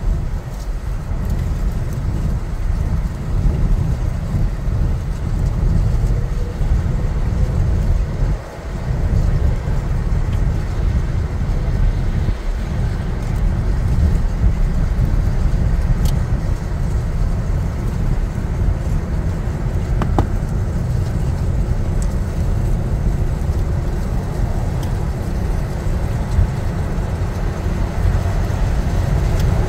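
Steady low rumble of wind buffeting and road noise on a moving vehicle's dash camera microphone, dipping briefly about eight seconds in.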